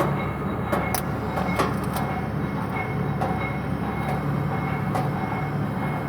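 Steady mechanical hum with a faint high tone, broken by a few scattered clicks and taps.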